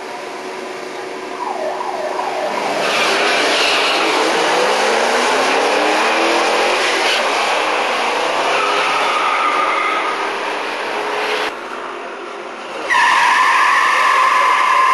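Two drag cars launch and accelerate down the strip, their engines rising in pitch and running hard. After a break, the 1967 Mustang's 390 V8 starts a burnout about 13 seconds in, its rear tyres giving a loud, steady squeal.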